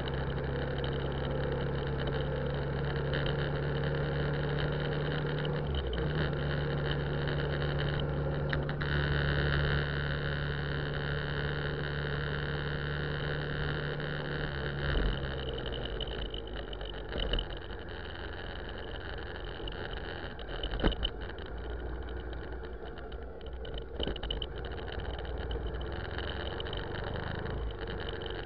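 A car's engine running at low speed, heard from inside the cabin, a steady hum that drops away about halfway through. A few knocks come in the second half, the loudest about two-thirds of the way in.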